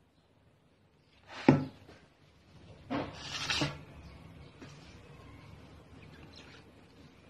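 Neem leaves and vegetables being tossed by hand in a stainless steel bowl: a sharp knock about one and a half seconds in, then a brief rustling toss around three seconds in.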